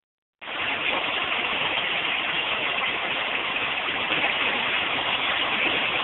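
Water running steadily into a bathtub from the tap, an even rush that starts about half a second in.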